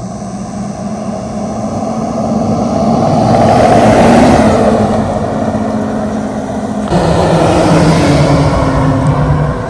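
Lifted Jeep Wrangler JL on 37-inch mud tires driving past, its tire noise swelling to a peak and falling away with a low hum that drops in pitch as it goes by. About seven seconds in, the sound cuts abruptly to a second pass that swells again.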